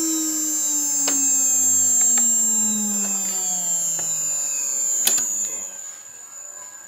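CNC router spindle winding down: a whine that falls steadily in pitch for about five seconds, over a steady high-pitched whine. A few light clicks, and a sharper knock about five seconds in as the plastic plate is handled, before the sound fades.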